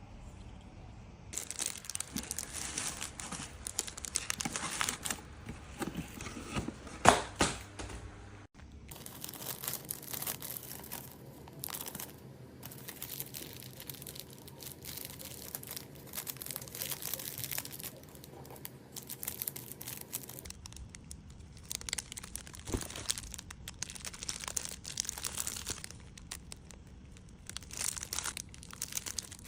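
Crinkling and rustling from hands handling craft materials, in short irregular bursts, with one sharp click about seven seconds in.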